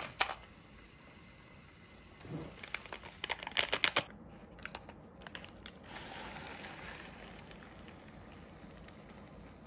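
Cup ramen packaging crinkling: the lid and a plastic seasoning packet rustle in short crackly bursts, most of all from about two to four seconds in as the powder is shaken out. From about six seconds, water is poured into the paper cup with a soft, steady hiss.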